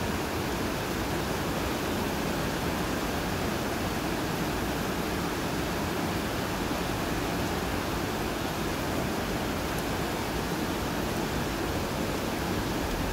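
Steady, unchanging rushing noise of station platform ambience, with no train yet heard approaching or passing.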